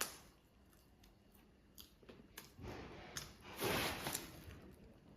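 Crunchy fried chicken being bitten and chewed close up: scattered small clicks and two short crunchy bursts after a quiet start.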